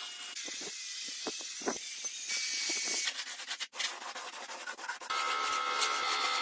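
Abrasive sanding and rubbing in a run of short, abruptly cut segments, then a power tool's steady whine starting about five seconds in.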